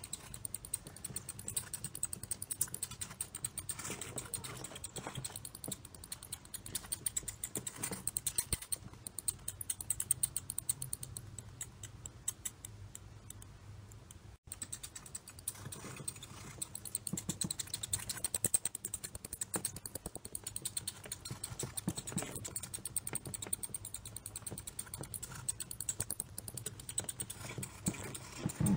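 Sound effect of mice scurrying: a dense, rapid patter of tiny clicks and scratches, with a momentary cut-out about halfway through.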